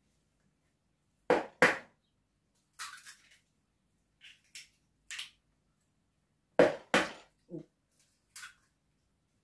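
Two eggs cracked against the rim of a plastic mixing bowl, one at a time. Each gives two sharp knocks, the first pair about a second in and the second pair about two-thirds of the way through, followed by softer clicks and crackles as the shell is pulled apart.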